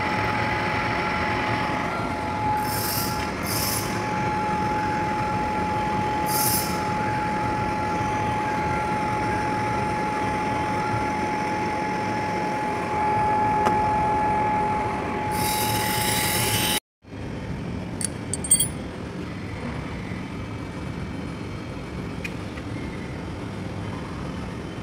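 Metal lathe running with a steady whine while a cutting tool turns down a metal bar, with a few short hissing bursts of cutting. About two-thirds of the way through the sound cuts abruptly to a quieter steady machine hum with a few clicks.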